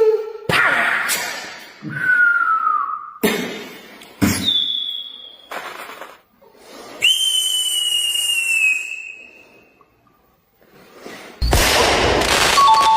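A string of comic sound effects: several sudden hits, each followed by a whistle tone, then one long whistle that falls slightly in pitch about seven seconds in. After a short silence, a loud, noisy burst comes in near the end.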